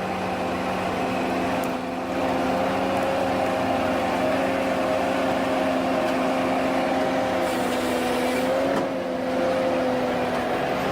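Ponsse Ergo forestry harvester's Mercedes-Benz diesel engine running steadily at working speed, its note sagging briefly near the end.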